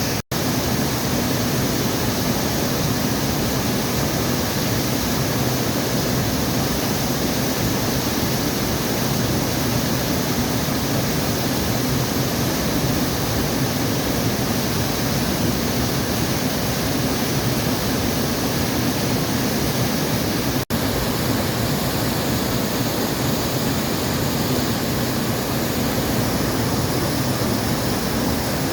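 Waterfall: a steady rush of falling water, even and unbroken except for two instant gaps, one right at the start and one about two-thirds of the way through.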